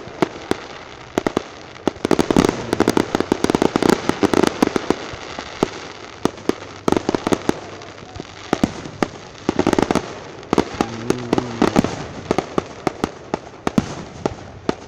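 Aerial fireworks display: a rapid, irregular series of bangs over continuous crackling, densest in the first few seconds and again near the end of the first two-thirds.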